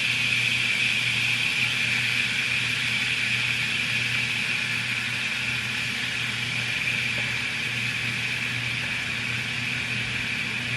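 Oxtails sizzling in hot olive oil in a pan as they brown: a steady hiss, with a low hum underneath.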